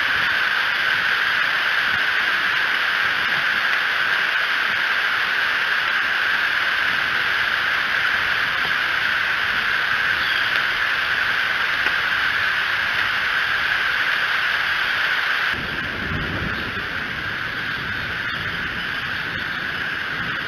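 Steady hiss of rain falling on the nest and the outdoor camera's microphone. It drops abruptly in level about three-quarters of the way through, after which a few low rumbles come through.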